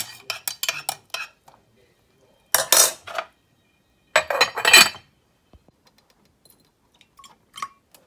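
Clattering and clinking of household objects being handled: quick sharp clicks in the first second and a half, then two short bursts of rattling about 2.5 and 4 seconds in.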